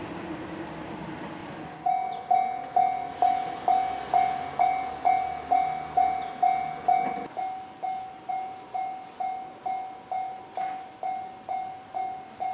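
Japanese level crossing warning bell starts about two seconds in, ringing evenly at a little over two strikes a second. Just before it, a steady rumble cuts off abruptly.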